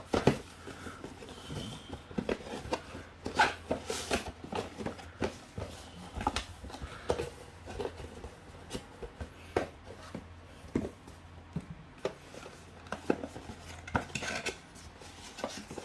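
Cardboard packaging handled by hand: irregular taps, scrapes and small knocks as the flaps of a toy's retail box are opened and a black cardboard insert is lifted out. A faint steady low hum runs underneath.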